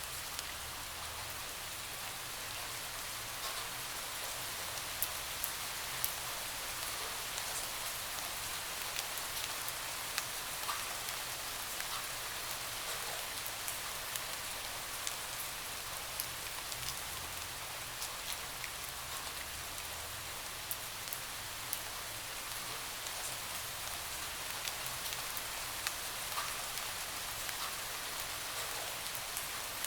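Steady rain pattering on a window, a constant hiss with scattered sharper drop ticks.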